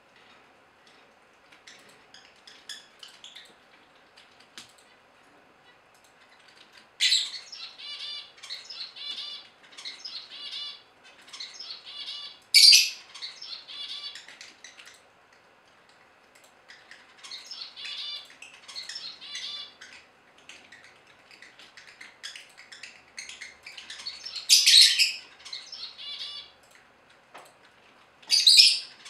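Masked lovebirds chattering: runs of rapid, high chirps lasting a few seconds each, with pauses between, and four loud shrill calls standing out above the twitter.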